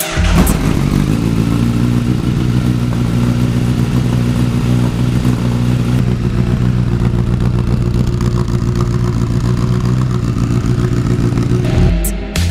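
2014 Honda CBR1000RR inline-four engine, breathing through a Black Widow short exhaust with its baffle in, starting up at the very beginning and then idling steadily. Music takes over near the end.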